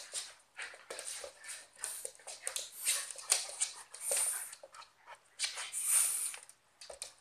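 A cocker spaniel and a West Highland white terrier play-fighting: a quick, irregular run of short noisy snarls and scuffles, loudest about three and six seconds in.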